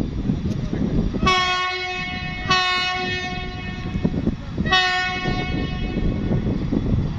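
Air horn of an EMD diesel locomotive sounding three blasts: two close together starting about a second in, then a shorter one about two seconds later. A steady low rumble runs underneath.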